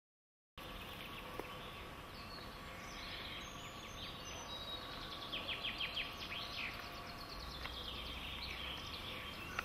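Woodland ambience with small birds calling: scattered chirps and a quick run of short falling notes about five seconds in, over a faint steady hum. It cuts in abruptly from silence about half a second in.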